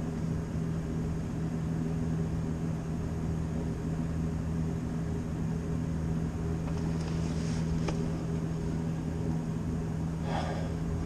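A steady mechanical hum at one fixed pitch, like a fan motor running, with a few faint clicks a little past the middle and near the end.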